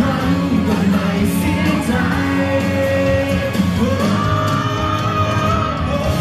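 Male singer performing a song live into a handheld microphone over backing music, with a long held note starting about four seconds in.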